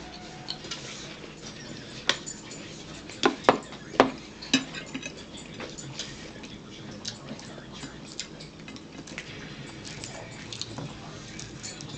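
Metal fork clinking and scraping against a plate as pizza is cut, a string of sharp clinks with a louder cluster from about two to four and a half seconds in.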